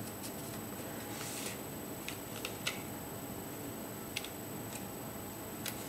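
Small plastic spoon pressing soft candy-kit dough down into a plastic tray: a few light clicks and a brief scrape over a steady low hiss.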